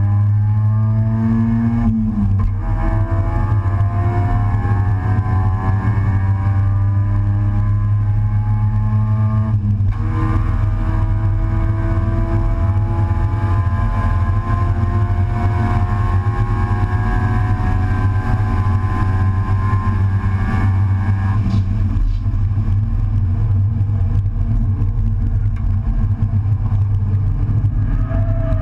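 Race car's engine heard from inside its stripped cockpit under hard acceleration, its note climbing and breaking twice for upshifts, about two seconds and about ten seconds in. About three-quarters through, the higher note falls away as the driver comes off the throttle, leaving a lower, steady running sound.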